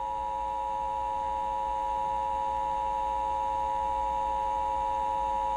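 Emergency Alert System two-tone attention signal: a steady, unbroken dual tone just under 1 kHz with a weaker lower tone beneath it, signalling that an emergency alert (here a tornado warning) is about to be broadcast.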